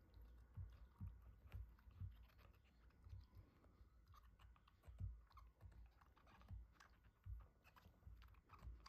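Faint chewing: a corgi gnawing a red ribbed chew toy, giving soft irregular thuds and small clicks about once or twice a second.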